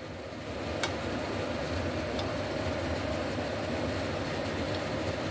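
Steady bubbling and hissing of a pot of fish soup boiling on a gas stove, with one light click about a second in.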